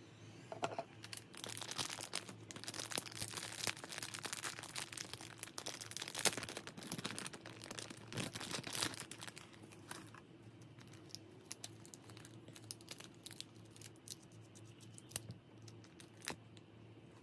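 Clear plastic parts bag crinkling and rustling in the hands, dense for the first several seconds. It then thins to scattered crinkles and light clicks as a small part wrapped in thin plastic film is unwrapped.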